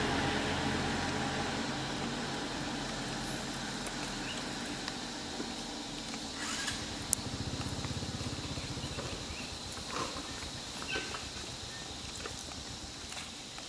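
A motor vehicle's engine fading away over the first couple of seconds, then quiet outdoor ambience with a faint hum and scattered small clicks and rustles, one sharp click about seven seconds in.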